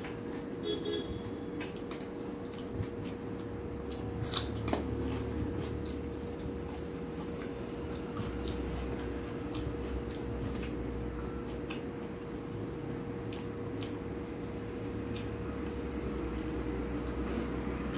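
Close-up eating sounds: chewing with wet mouth clicks, and fingers squishing rice and curry together on a steel plate, with sharp clicks throughout, the loudest about four seconds in. A faint steady hum runs underneath.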